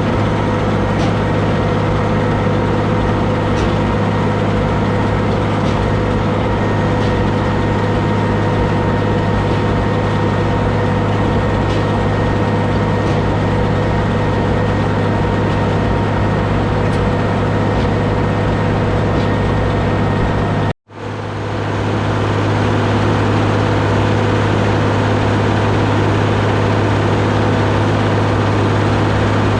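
Deutz D130 06 tractor's air-cooled six-cylinder diesel running steadily under load while pulling a round baler through the field, with faint regular ticks on top. The sound cuts out for an instant about two-thirds of the way through and fades back in.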